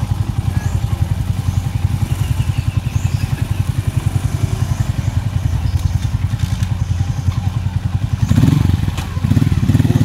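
Small engine running steadily with an even chugging beat, growing louder and heavier about eight seconds in.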